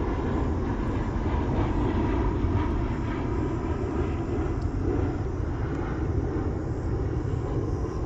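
A steady low rumbling noise that does not let up, with no clear strokes or tones.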